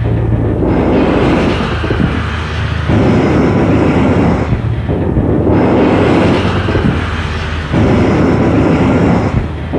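Experimental noise music: a loud, dense rumbling wash of noise over a low steady drone. It thins and swells again in a repeating cycle of about five seconds.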